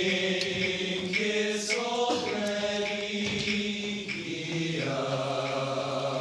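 Several voices singing long, held chords in a slow chant. The chord changes every second or two, and a lower held note comes in near the end.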